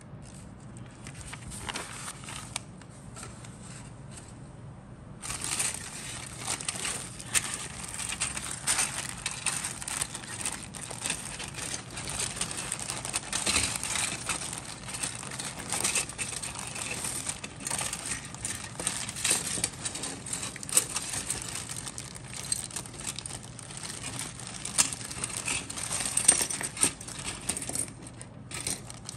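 Clear plastic bag crinkling as grey plastic model-kit sprues are handled inside it and pulled out, with many sharp clicks of the plastic parts knocking together. For the first few seconds there is only softer rustling of the paper instruction sheet; the loud crinkling starts about five seconds in.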